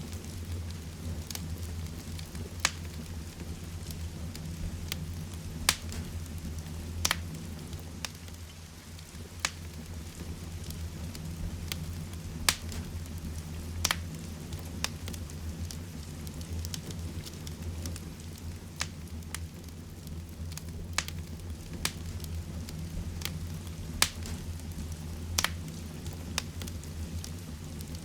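Heavy rain and a wood fire in a fireplace: a steady low rumble and hiss of rain, with sharp crackles and pops from the burning wood at irregular intervals, roughly one a second.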